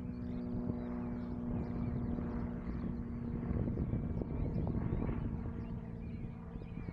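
A steady engine hum with birds chirping and twittering over it.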